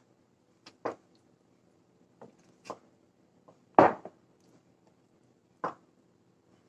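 Wooden spatula stirring thick rava kesari in a nonstick frying pan: about six short scrapes and knocks against the pan, the loudest nearly four seconds in.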